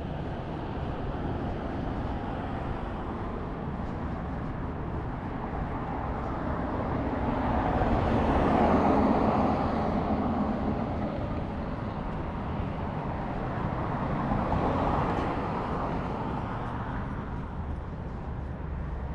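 Street traffic over a steady low rumble: one vehicle passes, swelling and fading about eight to ten seconds in, and a second, quieter one passes near the end.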